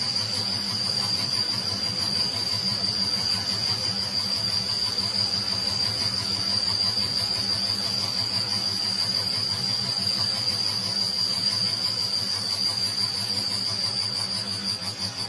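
Lathe spinning a truck crankshaft as a journal is turned: steady running with a continuous high-pitched whine over a low hum.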